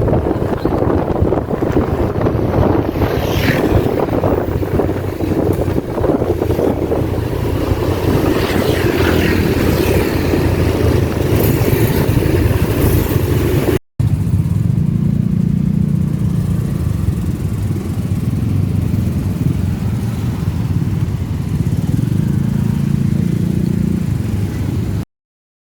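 Vehicle and road noise while riding, with wind on the microphone. After a cut about 14 seconds in, it becomes a steadier low engine drone, then stops abruptly near the end.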